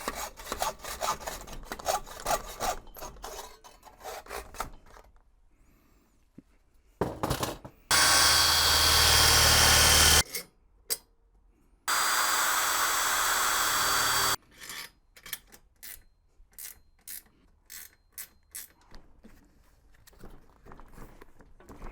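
Metal workshop handwork: rapid scraping strokes and clatter, then two steady runs of a power tool of about two seconds each, with scattered knocks after them.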